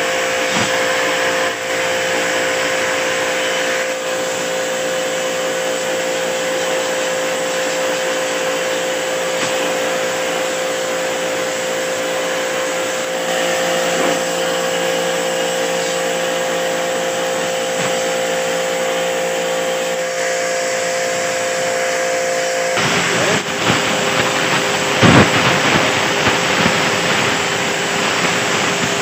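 Travino portable high-pressure washer, an induction-motor unit, running steadily with a whine while its jet sprays water onto a split-type air conditioner's evaporator coil. A little over 20 seconds in, the whine's pitch shifts and the spray becomes rougher and more uneven.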